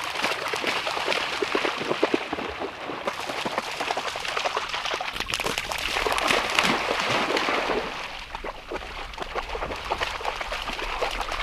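Running water trickling and splashing, with a low rumble joining about halfway through.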